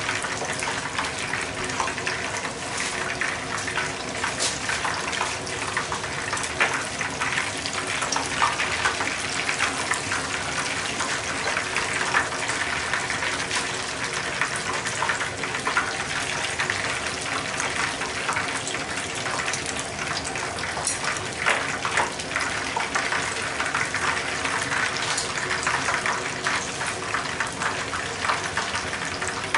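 Shrimp tempura deep-frying in a frying pan of hot oil: steady sizzling with a constant crackle of small pops.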